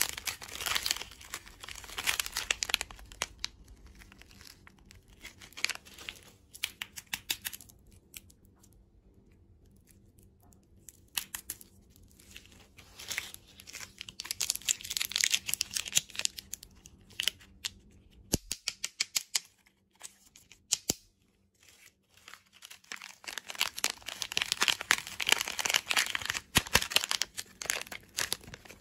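Plastic lollipop wrappers and a Chupa Chups Crazy Dips pouch crinkling and tearing as hands handle them, in three bursts of rustling with quieter, scattered crackles between.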